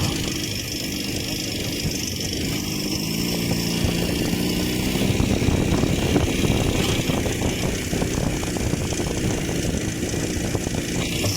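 IZh Jupiter-5 motorcycle's two-stroke twin engine running, growing louder for a few seconds in the middle and then easing off.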